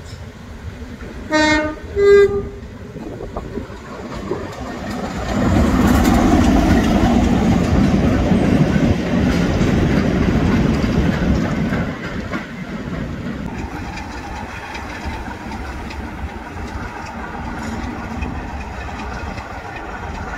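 British Rail Class 33 diesel locomotive sounds its two-tone horn, a short low note then a short higher note, then its Sulzer eight-cylinder engine runs loud with wheels clacking over the rails as it hauls a rake of freight wagons past, from about five to twelve seconds in. After that the engine sound is steadier and quieter.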